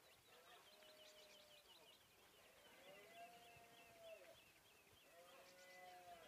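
Faint open-country ambience: small birds chirping over and over, and two long, drawn-out animal calls, one in the middle and one near the end.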